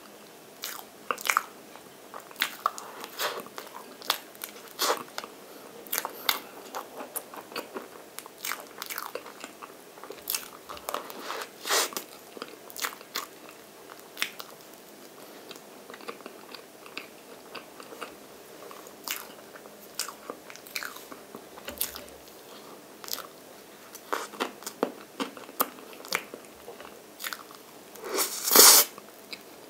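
Close-miked mouth sounds of eating soft chocolate cream cake: wet chewing and lip-smacking heard as many short, irregular clicks. The loudest, longest burst comes near the end as a big forkful goes into the mouth.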